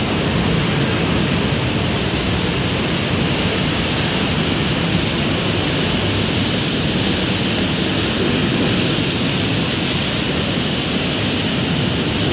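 Steady, loud rushing background noise, even throughout, with no single event standing out.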